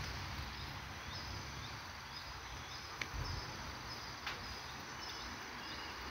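Faint outdoor ambience with a short, high chirp repeating about twice a second, and two soft clicks in the middle.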